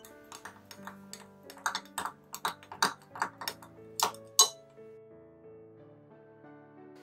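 A spoon clinking against the sides of a glass measuring jug while stirring a liquid, in a quick irregular run of clinks. The clinks end with the loudest pair about four to four and a half seconds in. Soft instrumental background music plays under it.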